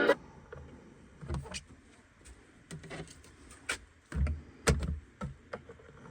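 Scattered clicks and light knocks from a portable record player being handled between records, with a couple of louder thumps about four to five seconds in.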